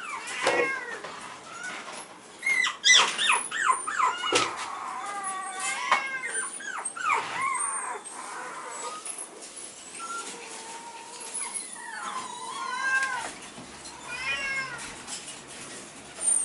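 Small puppy whining: a string of high, squeaky whimpers that rise and fall in pitch, coming thick and fast about three to five seconds in, then scattered through the rest.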